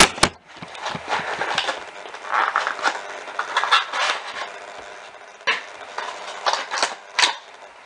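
Cardboard and paper packaging being rummaged through by hand: rustling and scraping, with several sharp knocks and clicks, one at the very start and others about five and a half and seven seconds in.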